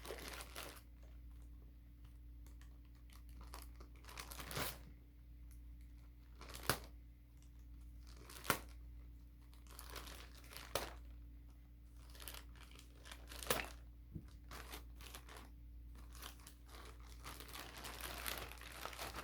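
Cardboard and plastic packaging being torn and crinkled by hand, with several sharp knocks and clicks as the contents are handled, over a steady low hum.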